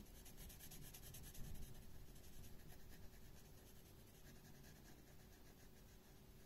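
Faint scratching of a marker tip on paper in quick short strokes as a small area is coloured in, fading after about three seconds.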